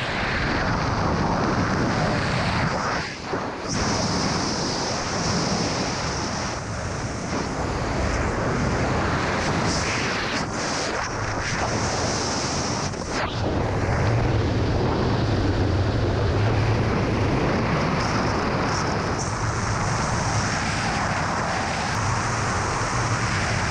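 Loud, steady wind rushing over a camera microphone in wingsuit flight.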